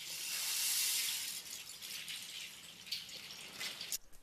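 A rushing hiss swells up from silence, peaks about a second in, then settles to a lower hiss with a few faint clicks.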